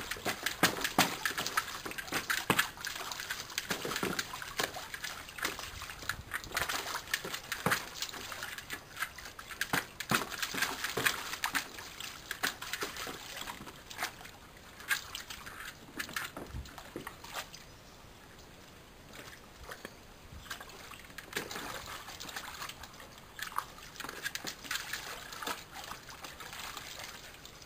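Water splashing and sloshing in a plastic paddling pool as a dog paws and shoves a hard plastic Boomer Ball around in it. The splashes come thick and irregular through the first half, then thin out and grow quieter toward the end.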